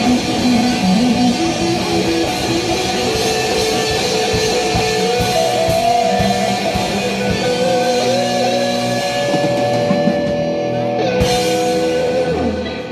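A live rock band playing without vocals: electric guitars over a drum kit. Long held notes ring through the last few seconds, with a bright crash about eleven seconds in.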